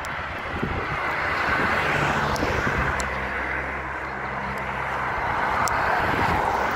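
Steady rush of road traffic passing, with a vehicle engine humming low for a few seconds in the middle.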